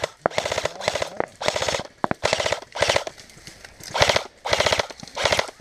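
Airsoft electric rifle (AEG) firing on full auto in about eight short bursts, each a rapid, even rattle of shots a third to half a second long, with brief pauses between them.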